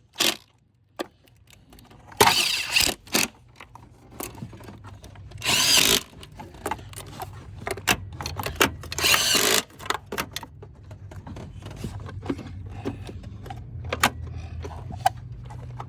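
A handheld power drill spinning in several short bursts, each under a second, driving intake manifold bolts in, with clicks and small clatter between the bursts.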